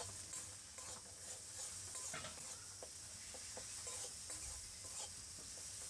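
Ginger-garlic paste and tomato masala sizzling in hot oil in a metal kadai. A metal spatula stirs and scrapes the pan, giving short scraping strokes over a steady hiss.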